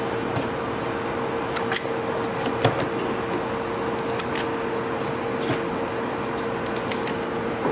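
Steady hum of kitchen machinery with a constant tone, with scattered light clicks and taps of utensils while ice cream is scooped.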